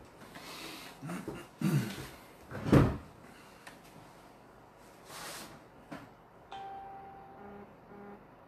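Rustling and knocks from a person settling at a table and moving things on it, with one loud thump about three seconds in. Near the end comes a steady beep-like tone lasting about a second, then a shorter one.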